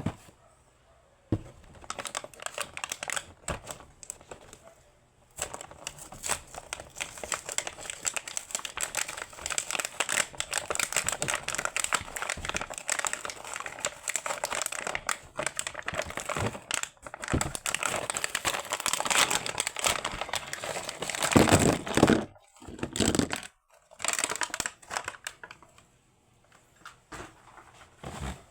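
Packaging of a toy set being crinkled and torn open by hand during unboxing, an irregular run of crackling rustles with a couple of brief pauses near the end.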